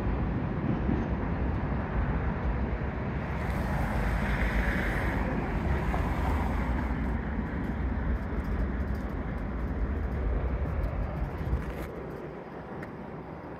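Wind rumbling on the microphone over steady outdoor city and traffic noise, easing off near the end.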